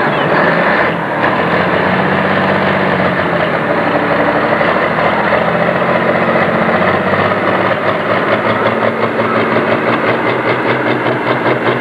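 Turbocharged diesel engine of a Case IH Pro Stock pulling tractor running flat out under heavy load as it pulls the sled down the track.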